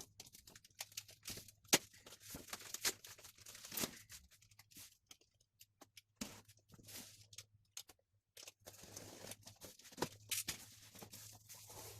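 A blunt knife slitting packing tape on a cardboard carton: tape tearing and cardboard scraping and crinkling in irregular bursts, with brief pauses.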